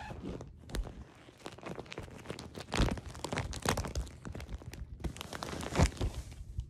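Plastic packaging of a sheet set crinkling and rustling as it is handled, in irregular crackles, louder about three seconds in and again near the end.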